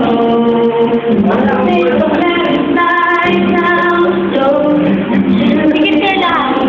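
A man singing a slow song into a handheld microphone, holding long notes that slide between pitches.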